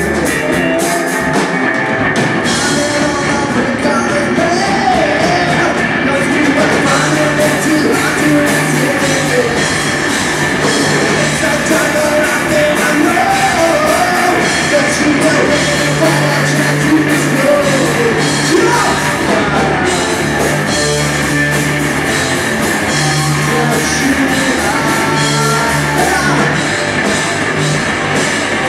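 Rock band playing live, with a singer's voice over guitar, bass and drums.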